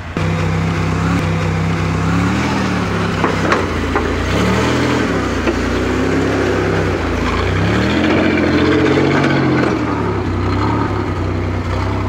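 Off-road trial buggy's engine running under load, revving up and falling back several times as it crawls over rocks, with a couple of sharp knocks about three and a half seconds in.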